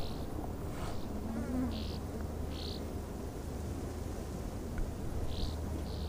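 Southern rough-winged swallow giving short, buzzy call notes, about a third of a second each, in a loose series. A low steady hum runs underneath from about a second in.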